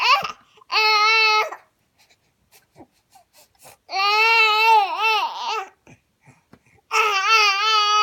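A baby boy making long, drawn-out vocal sounds, three calls each a second or more long, wavering in pitch, between babbling and crying.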